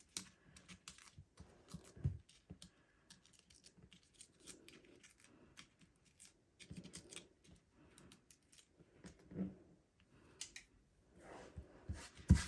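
Small handling sounds of cardstock and foam adhesive dimensionals: scattered light clicks, scratches and rustles, with a few soft taps of paper pieces being pressed down.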